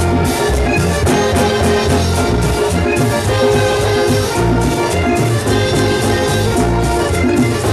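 Vallenato band music, loud and continuous, with held melodic notes over a steady low beat.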